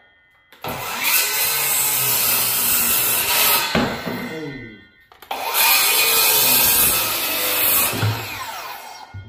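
Circular saw cutting through 2x4 framing lumber in two long cuts of about three seconds each. After each cut the blade winds down with a falling whine.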